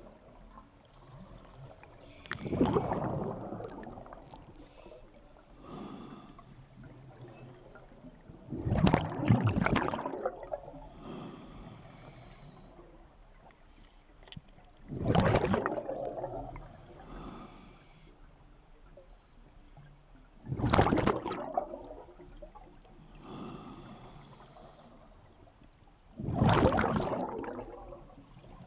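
Scuba diver breathing through a regulator underwater: five exhalations, about one every six seconds, each a loud burst of bubbling lasting a second or so, with a fainter hiss between them.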